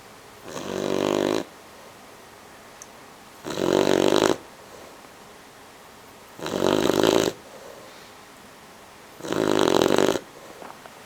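A 12-week-old bloodhound puppy snoring while asleep: four loud snores, each about a second long, coming about every three seconds.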